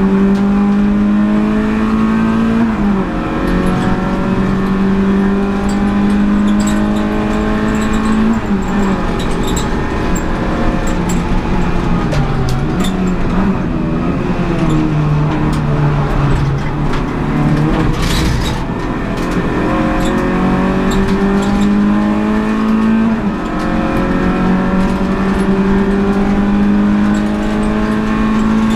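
Renault Clio Sport 182's four-cylinder engine at full throttle, heard from inside the cabin. Its pitch climbs steadily and drops sharply at upshifts about three and eight seconds in, falls away for several seconds around the middle, then climbs again through the gears. Road and tyre noise runs underneath, with one short sharp crack about eighteen seconds in.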